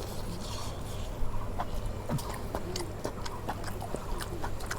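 A person chewing a mouthful of chicken biryani, with many small irregular mouth clicks.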